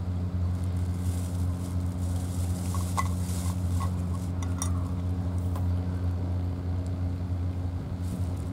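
A cat eating wet food from a bowl: small wet chewing and licking clicks, a few at a time, over a steady low mechanical hum.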